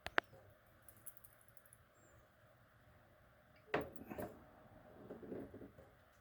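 A single sharp click just after the start, a few faint ticks about a second in, then a couple of knocks past the middle followed by soft rustling.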